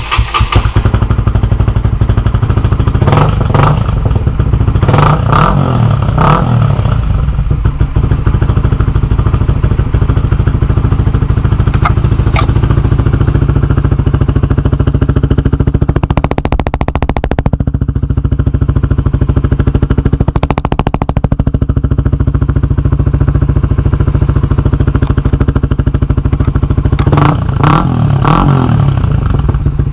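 Honda CBR150R's single-cylinder engine idling through a Yoshimura Alpha carbon full-system exhaust with its decibel killer fitted, blipped in short revs about six times. It is loud even with the silencer in.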